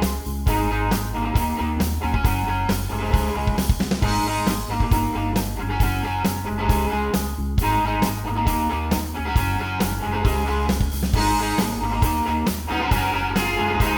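Background rock music with electric guitar, a steady beat and a strong bass line.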